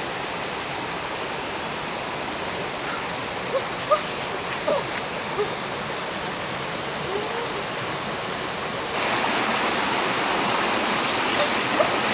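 Steady rushing noise of running water, like a stream, that gets louder about nine seconds in, with a few short chirps a little before the middle.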